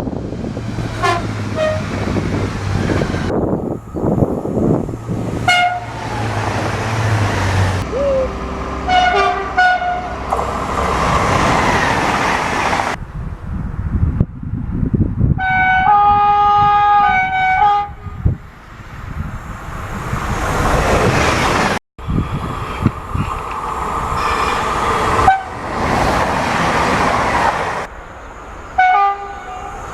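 Train horns sounding in a series of short toots, and near the middle a longer horn chord of several tones held for about two seconds. The rumble of passing trains runs underneath, with a sudden break about two-thirds of the way through where one recording gives way to the next.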